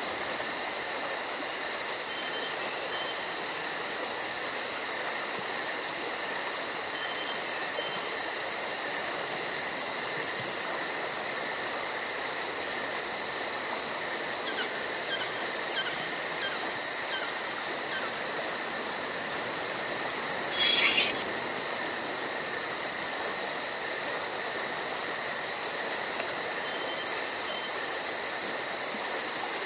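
Insects chirring steadily in a woodland evening ambience, with faint scattered chirps in the middle and one short, louder high hiss lasting about a second, about 21 seconds in.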